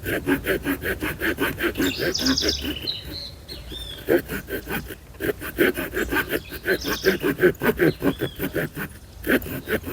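Victorinox RangerGrip pocket-knife saw blade cutting through a small log in quick, even back-and-forth strokes, about four a second, pausing briefly twice. Birds chirp above it.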